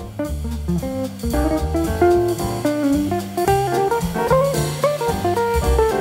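Background music: an upbeat jazzy tune with guitar and a drum kit keeping a steady beat.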